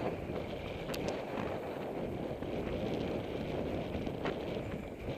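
Steady wind rush on the microphone and road rumble from a tandem bicycle riding along a tarmac road, with a few faint clicks.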